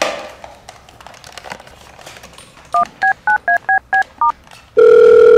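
Red desk telephone being dialled: a few faint handling clicks, then seven quick touch-tone keypad beeps. Near the end a loud steady tone starts on the line.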